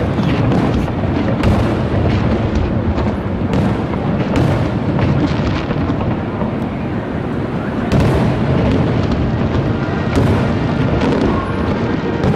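Fireworks show: a continuous barrage of booms and crackling from exploding aerial shells, with music playing along, clearer near the end.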